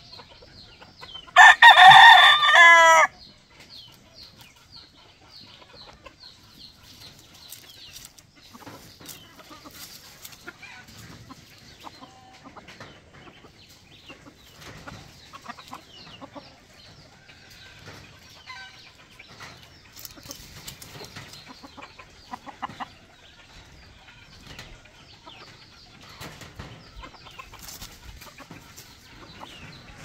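A rooster crows once, loud, starting about a second and a half in and lasting about a second and a half, its end breaking into a wavering fall. Afterwards, faint scattered clucking.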